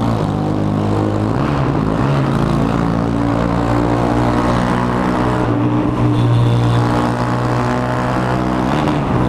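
Yamaha Fazer 250's single-cylinder engine with a straight-pipe exhaust running steadily at speed, its note dipping and rising briefly about two seconds in and again near the end, inside a road tunnel.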